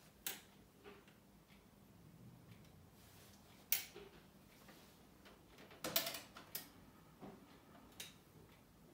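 A few separate mechanical clicks and clunks from a vintage turntable's mechanism and controls as it is stopped and handled, with its tonearm returned to rest, over a faint steady hum. There is a small cluster of clicks a little past the middle and another click near the end as a compartment flap is lifted.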